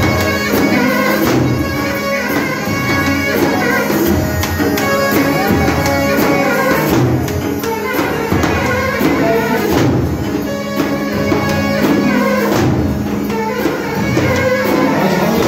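Loud live folk dance music for a line dance: a melody over a steady held drone note, with percussion striking throughout.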